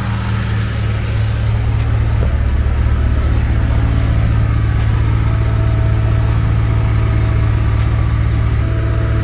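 Small red Honda gasoline pony motor on a lowboy trailer, just started and running with a steady hum; it drives the trailer's hydraulics.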